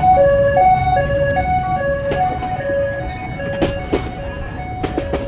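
Railway level-crossing warning alarm sounding an electronic two-tone signal, alternating low and high about once a second, which signals an approaching train. A few sharp metallic clanks come in the second half.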